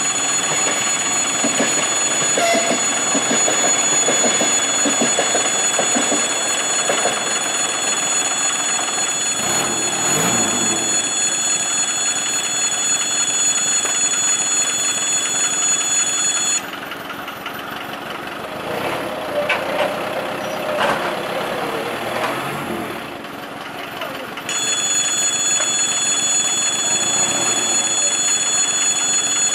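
Railway level-crossing warning bell ringing steadily and loudly. A little past the middle it cuts out abruptly for about eight seconds, leaving quieter rumbling and a wavering tone, then rings again.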